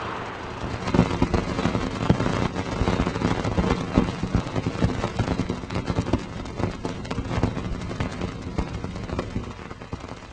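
Space sound recording converted to audio: a dense, irregular crackling and popping over a low rumble, slowly fading toward the end.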